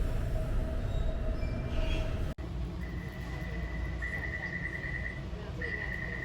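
Metro train running with a steady low rumble. After a sudden break a little over two seconds in, a high electronic beep sounds repeatedly in bursts about a second long.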